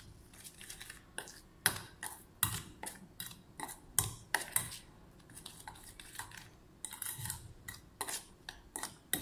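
Steel spoon scraping and clinking against a stainless steel bowl while stirring a thick, sticky paste, in irregular strokes.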